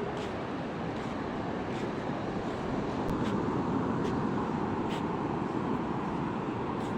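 Steady rushing of sea surf breaking on a beach, with a few faint ticks.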